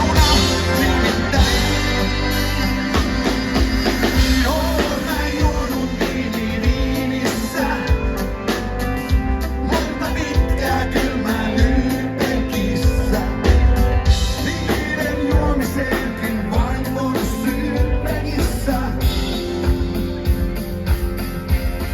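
Live rock band playing a song with sung lead vocal over drum kit, bass and guitar, with a steady beat.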